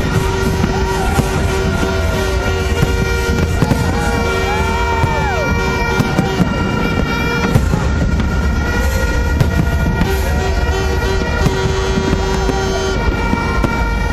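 A fireworks display going off in a continuous barrage of bangs and crackles, with horns sounding steady, repeated toots over it.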